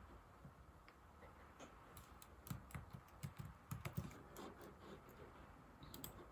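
Typing on an old laptop keyboard: faint, irregular key clicks, coming quickest about halfway through.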